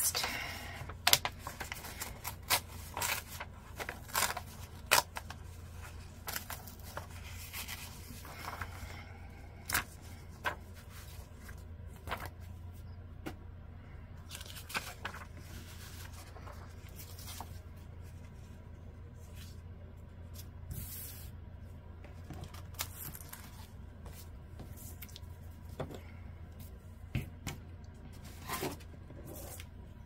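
Paper handling: the pages of an old book rustling as they are turned, and loose sheets sliding and tapping on a cutting mat, busiest in the first dozen seconds and sparser after. A steady low hum runs underneath.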